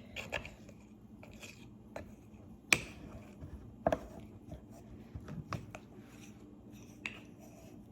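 A utensil stirring a thick, chalky paste of honey and ground spices in a bowl: soft scraping with scattered light clicks and knocks against the bowl, the two sharpest about three and four seconds in.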